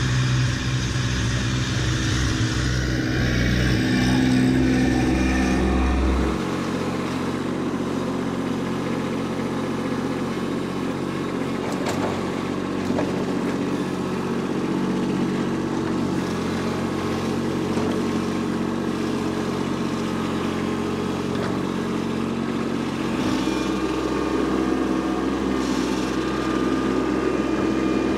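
Kubota B2601 compact tractor's three-cylinder diesel engine running steadily as the front-end loader scrapes and pushes dirt. The engine note changes abruptly about six seconds in and again about five seconds before the end.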